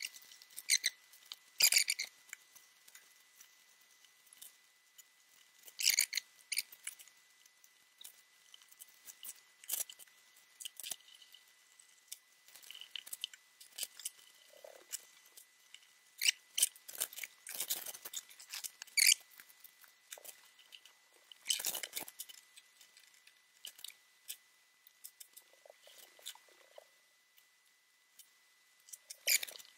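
Hands working on a foam wing: scattered light clicks, taps and rustling scrapes at irregular intervals as fiberglass spar rods are fitted into routed slots in the foam.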